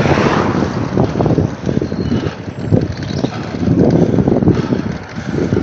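Wind buffeting the microphone of a camera riding along on a moving bicycle, a loud, uneven rushing that rises and falls in gusts.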